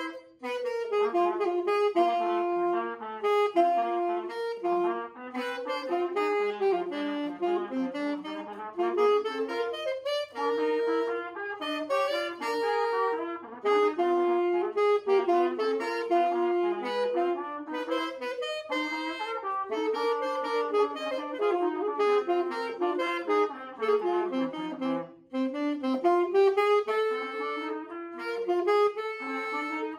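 Alto saxophone and trumpet playing a melody together as a duet, the two lines moving in harmony, with brief pauses between phrases.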